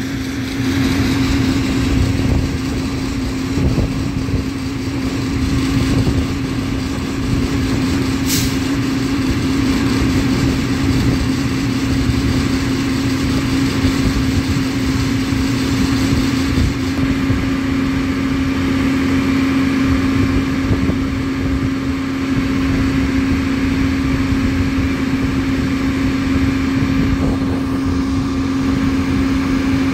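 Holland MobileWelder rail-welding truck running with a steady hum while it flash-butt welds a rail joint, with a single sharp click about eight seconds in.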